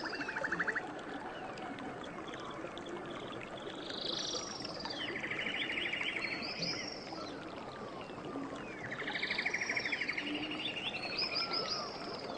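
Several birds calling over the steady rush of flowing river water. One bird repeats a fast trill three times, about four to five seconds apart, among short swooping whistles from others.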